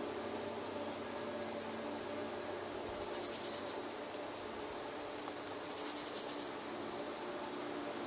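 Small woodland songbirds calling: thin, very high-pitched call notes repeated throughout, with two short, rapid trilled phrases about three and six seconds in.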